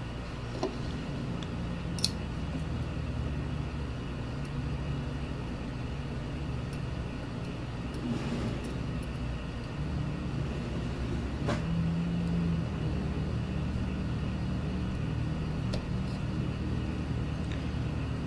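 Steady low mechanical hum with a few light clicks, one about two seconds in and another near the middle.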